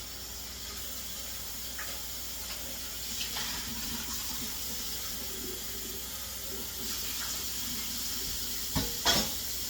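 Kitchen faucet running steadily into a sink, with a couple of short knocks near the end.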